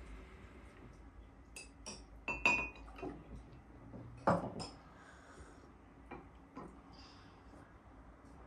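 Glass tea glasses and glass dishes clinking against saucers and the table, a handful of scattered light taps. The loudest come about two and a half and four seconds in, one of them ringing briefly.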